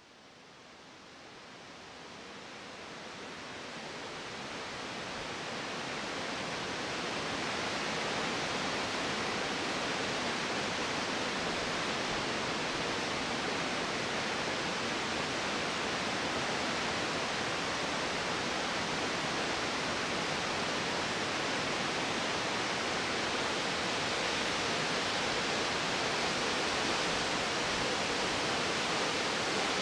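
Steady rush of falling water from Taughannock Falls, a tall plunge waterfall. It grows gradually louder over the first several seconds, then holds level.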